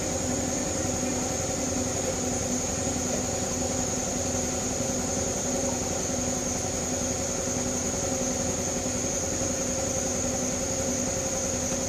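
Steady machine hum with a constant high-pitched whine, running without change.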